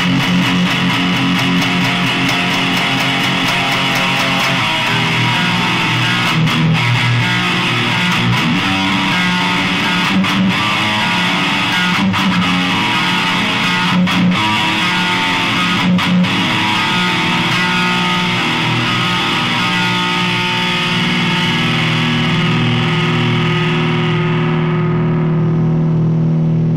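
Recorded band music, a demo song carried by heavily distorted electric guitars playing dense, sustained chords, with a few brief stops in the middle. Near the end the upper sound fades away, leaving a low held note.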